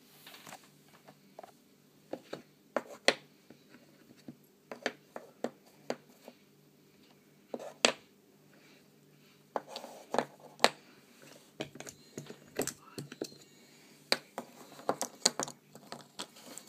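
Small hard resin charms clicking and tapping against each other and on the table as they are picked up, shifted and set down by hand: irregular light clicks, a few at a time, over a faint steady hum.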